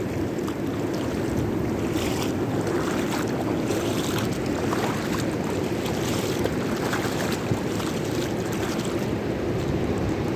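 Rough sea at high tide: waves breaking and washing in as a steady rumble, with the hiss of surf swelling through the middle of the stretch.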